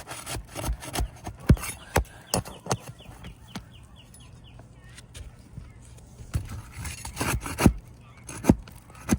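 Hammer driving roofing nails through asphalt shingles: a run of sharp, irregular knocks in the first few seconds and another run near the end. A bird chirps briefly in between.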